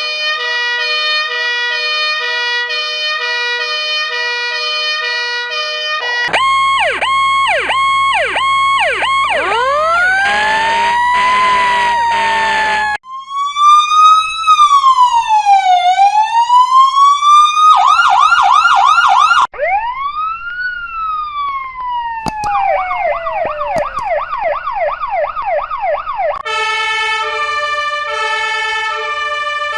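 A series of emergency-vehicle siren sounds, switching pattern every few seconds: a two-tone siren alternating between two pitches, then fast yelping sweeps, slow rising and falling wails, more fast yelps, and a two-tone alternation again near the end.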